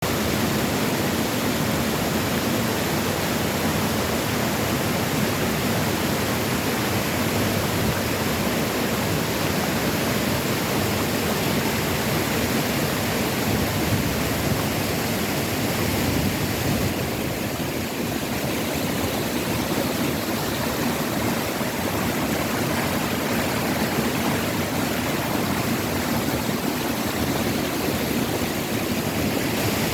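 Waterfall pouring, a steady, dense rush of falling water.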